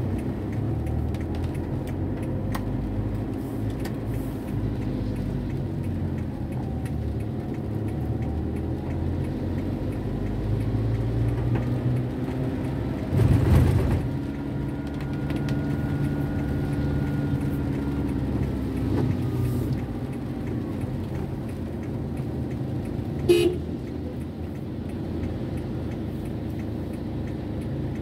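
Car driving on wet streets in rain, heard from inside the cabin: a steady low rumble of engine and tyres. A louder burst of noise comes about halfway through, and a short car horn toot sounds near the end.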